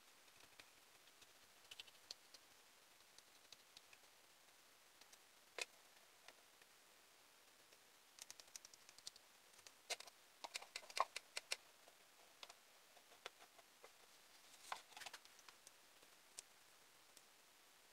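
Faint scattered clicks and taps of a metal spoon against a plastic cup and a mold as resin-coated coffee beans are spooned and stirred, with a busier run of clicks just past the middle.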